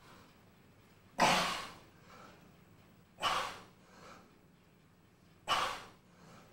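A man's sharp, forceful exhalations, three of them about two seconds apart, one with each push-up rep, with softer breaths in between.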